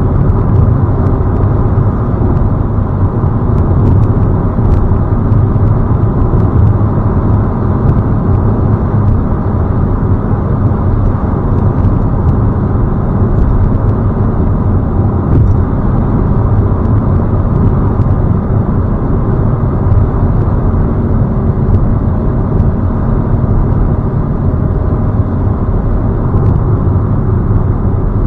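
Fiat Panda 4x4 cruising at about 60 mph in sixth gear, heard from inside the cabin: the engine purring along steadily under light road and tyre noise.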